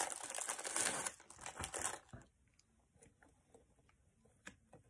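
Crinkling and rustling from hands handling crackers and snack packaging for about two seconds. Then it goes quiet apart from a few faint taps.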